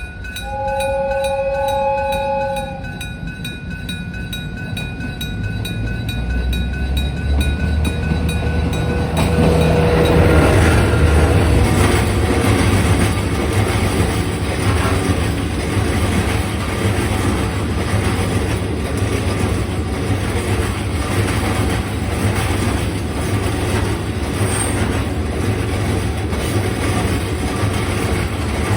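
Level-crossing alarm ringing, then a diesel freight locomotive sounds a two-note horn for about two seconds. From about six seconds in the locomotive's low engine rumble builds, loudest around ten seconds, and the freight wagons roll steadily past over the rails.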